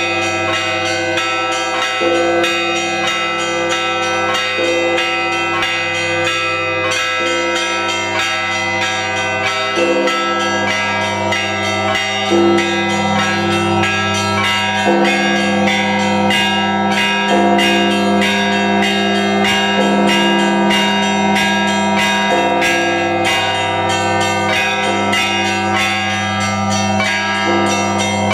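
Russian Orthodox church bells rung in a festive peal: small bells struck rapidly, several strokes a second, over the sustained hum of larger, deeper bells, ringing continuously.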